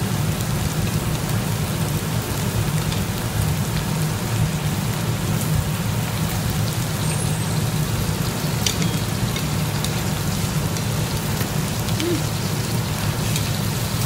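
Meat and onion sizzling steadily on a hot grill pan, over a steady low hum, with a few faint clicks of utensils.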